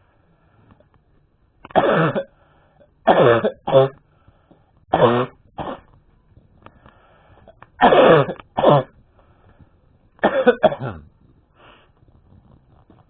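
A man coughing hard in a fit: five loud bouts about every two to three seconds, most of them a strong cough followed at once by a shorter one. The fit was set off by choking, in a man with asthma.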